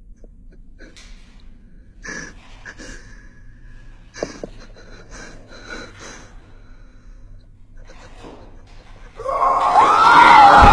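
A frightened woman's short, shaky gasps and breaths in the dark, a few at a time over a low hum. About nine seconds in, a sudden, much louder burst of noise breaks in, with high wavering cries.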